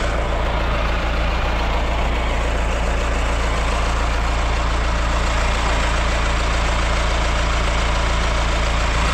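Diesel engine of a farm loader running steadily, with a strong low drone.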